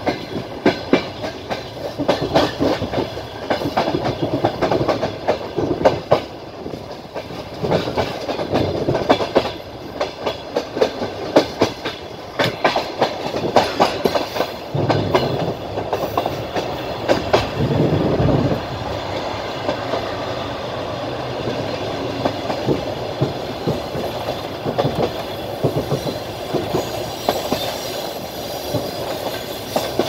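Passenger train under way, heard from inside the carriage: the wheels clatter over rail joints and points in a dense, irregular clickety-clack over a steady rumble. About two-thirds of the way in, the knocks thin out and a smoother, steadier rumble takes over.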